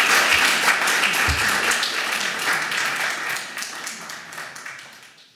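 Audience applauding, a dense patter of hand claps that thins and fades out to silence near the end.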